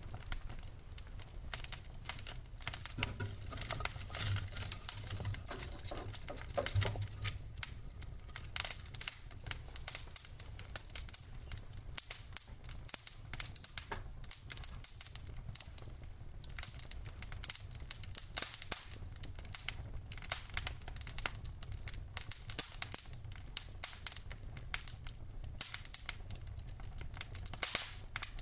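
Wood fire crackling in a fireplace: a steady low rumble of flames under dense, irregular crackles, with louder sharp pops now and then, including one near the end.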